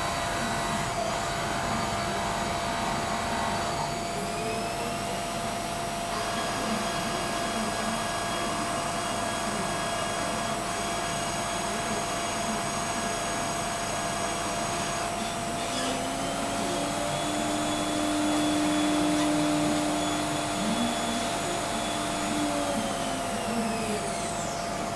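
Deckel Maho DMC 60 U machining centre running under flood coolant: a steady hiss of coolant spray with a spindle whine in several tones that rise in pitch a few times and fall away near the end as the spindle slows.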